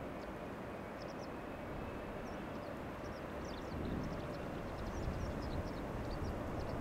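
Distant jet airliner rumble, growing a little louder about four seconds in, with small birds chirping over it.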